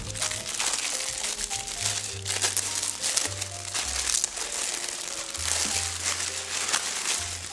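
Clear plastic wrapping crinkling and crackling as it is pulled off a puzzle cube, over background music with held bass notes.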